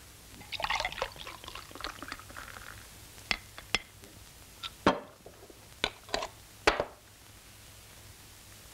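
Beer poured from a bottle into a glass mug: a gurgling pour from about half a second in until nearly three seconds, followed by about six sharp clicks and knocks.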